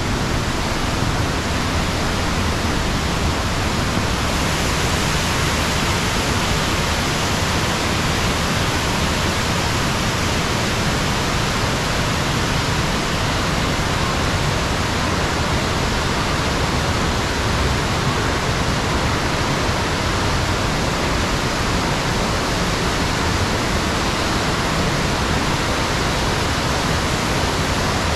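Steady rushing of water through a narrow shale gorge: a waterfall and its stream, running loud and even without a break.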